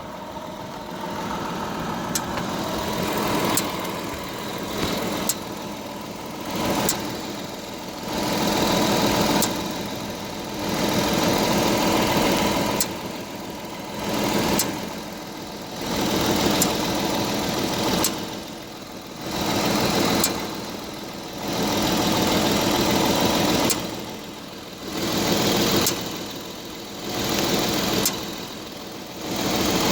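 Audi A7 standing still with the engine running, with a sharp knock about every second and a half from the driver-side wheel or suspension, a knock heard only when stationary. Under it a droning noise swells and fades every couple of seconds.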